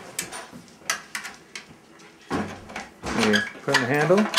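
Hand-cranked pasta machine with a spaghetti cutter attachment being turned, giving irregular clicks and knocks from the crank and cutting rollers. About halfway a voice comes in, louder than the machine.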